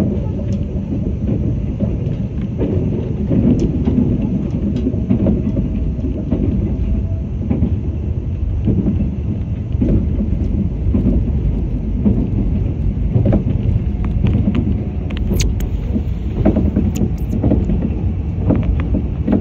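Limited Express Yakumo train running at speed, heard inside the passenger car: a loud, steady low rumble of wheels on rail, with scattered clicks and a few sharper clicks near the end.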